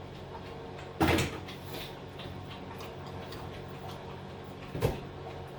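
Two sharp knocks, one about a second in and one near the end, over a low steady hum.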